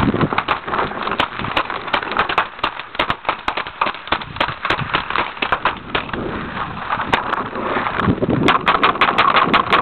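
Paintball markers firing, many sharp irregular pops in quick succession.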